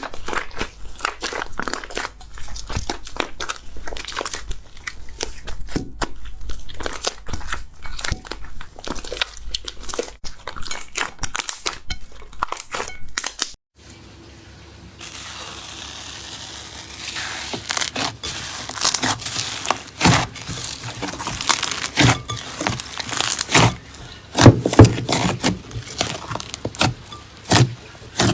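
Slime being squeezed and pressed by hand, making a dense run of small irregular clicks and pops. About 14 seconds in it cuts to another clip: a brief quiet gap, then louder, sharper pops.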